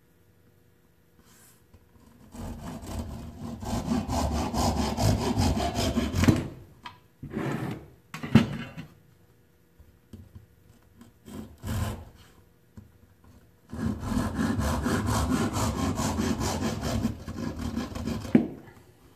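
Hand saw cutting through a wooden dowel rod in quick back-and-forth strokes, in two bouts of about four seconds each. Between the bouts come a few short scrapes and a sharp knock.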